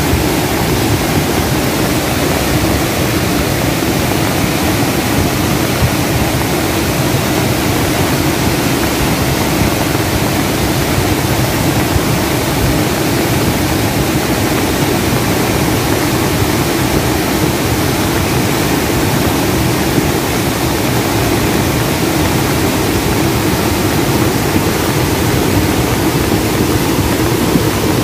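Swollen river in flood, its floodwater rushing past in a loud, steady roar.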